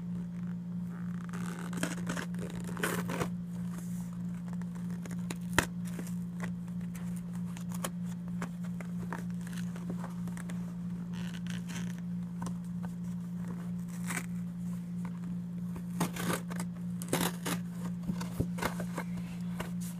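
Cardboard of a cereal box being cut with a hand-held blade, in uneven scraping, tearing strokes with pauses between them, and one sharp click about five and a half seconds in. A steady low hum runs underneath.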